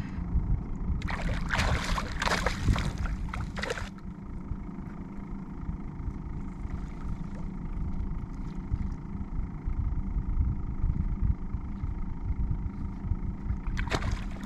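Hooked speckled trout thrashing at the water's surface beside a kayak: bursts of splashing about a second in, lasting a few seconds, and again near the end, over a steady low rumble.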